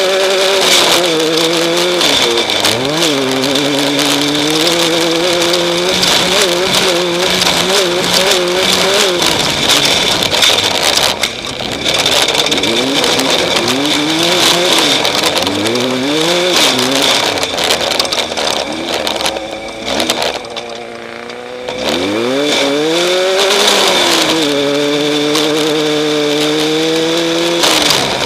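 Off-road race vehicle's engine running hard, its revs climbing and dropping again and again with throttle and gear changes, over constant rattling and a steady high whine. About twenty seconds in the engine falls to a low note for a couple of seconds, then revs sharply back up.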